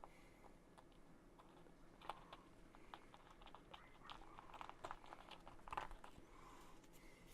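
Faint, irregular clicks and taps of small laser-cut wooden kit pieces being handled and pressed together, densest in the middle.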